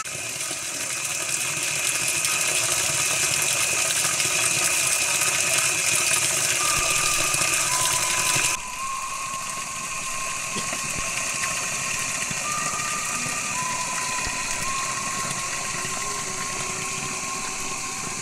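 Night ambience in vegetation: a dense, steady, high-pitched hiss of night insects with faint held tones near one pitch that shift every second or two. The hiss drops abruptly about eight and a half seconds in at a cut, then carries on more quietly.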